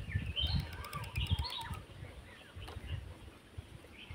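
Small birds chirping and calling in quick sliding notes, busiest in the first half and sparse after that. Low, irregular rumbles of wind or handling noise on the microphone run underneath.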